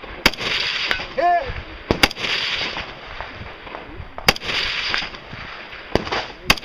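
Rifle fired at a slow, uneven pace, about five sharp shots, each report followed by a short echo.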